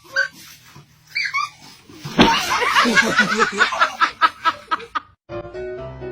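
Loud, rapid bursts of laughter for about three seconds, then a bouncy comedy music cue starts near the end.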